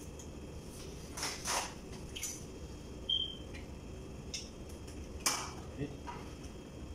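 A few scattered clinks and clatters of a ladle and spoons against an aluminium pot and dishes, one of them a brief ringing clink about three seconds in, over a steady low room hum.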